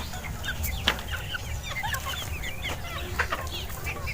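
A flock of native chickens clucking and calling, many short calls overlapping, with a sharp click about a second in and another just after three seconds.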